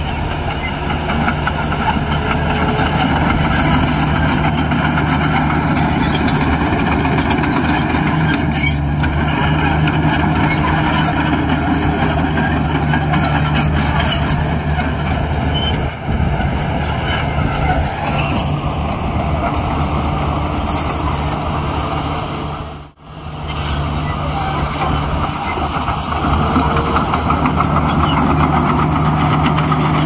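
Heavy diesel earthmoving machinery, dump truck and bulldozer, running steadily under load, with a continuous low engine drone. It breaks off for an instant about three-quarters of the way through, then carries on.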